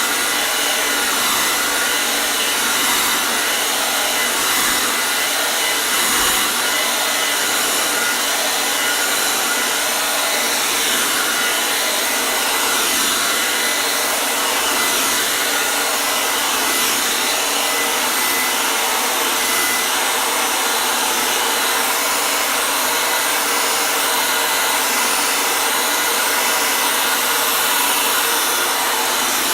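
Hair dryer blowing steadily, a constant airy whoosh with a faint motor whine and no change in speed.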